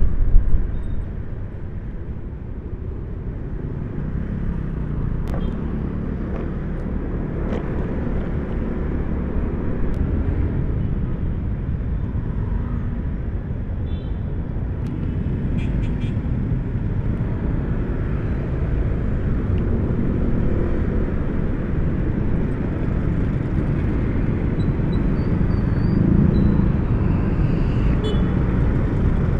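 Motor scooter riding through motorbike and car traffic: a steady low rumble of the scooter's engine and wind on the microphone, loudest about the first second in, with a few faint ticks mid-way.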